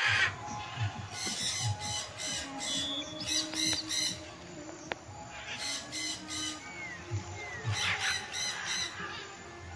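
A bird calling in quick series of four or five short notes, the series repeated four times with pauses between.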